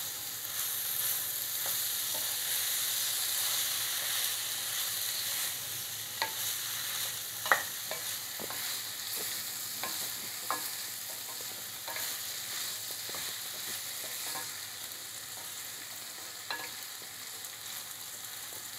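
Sliced okra sizzling as it fries in a metal kadai, stirred with a wooden spoon that scrapes and now and then knocks against the pan. The sizzle fades a little toward the end, and the sharpest knock comes about halfway through.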